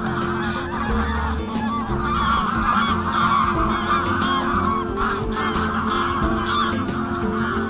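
A large flock of geese calling in flight, many overlapping calls forming a dense, continuous chorus.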